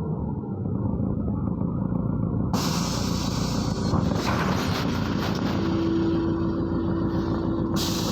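MAZ-103 city bus running, heard from inside the cabin: a steady engine and road rumble. About two and a half seconds in, a loud hiss starts abruptly, and a steady tone comes in a little past halfway.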